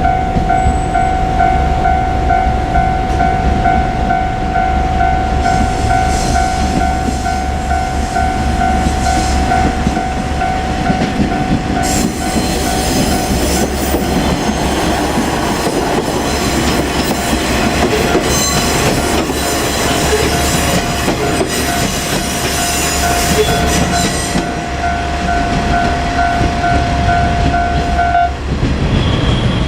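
Japanese level-crossing warning bell ringing on and on while a two-car KiHa 47 diesel railcar passes over the crossing, its engine rumbling and its wheels clattering and hissing loudest about halfway through. The bell stops near the end.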